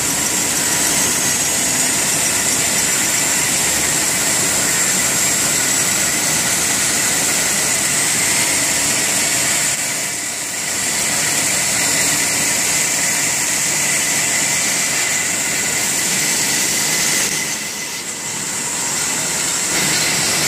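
High-speed kraft paper rewinder running: a loud, steady machine din with a high whine over it, dipping briefly twice.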